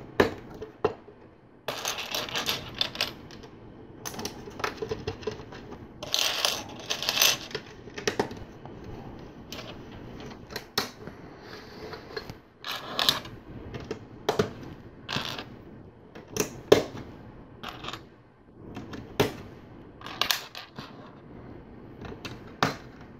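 Small plastic LEGO pieces clicking and clattering as they are picked through and pressed together: many scattered sharp clicks, with longer rattles about two seconds in and again around six to seven seconds.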